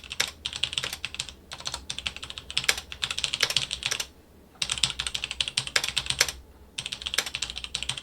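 Typing on a mechanical keyboard with linear switches: rapid runs of key clicks and clacks, pausing briefly twice.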